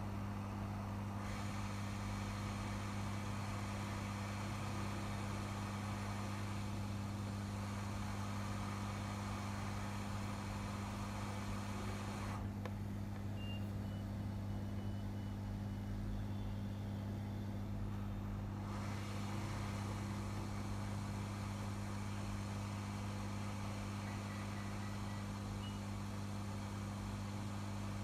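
Steady mains-type hum with an airflow hiss, typical of a hot air rework station running while a new IC is fitted to a laptop motherboard. The hiss stops for about six seconds midway, then comes back.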